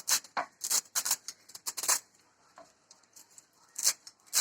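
Knife chopping fresh adalodakam (Malabar nut) leaves: a run of sharp, irregular cuts through the first two seconds, then a pause and another cut or two near the end.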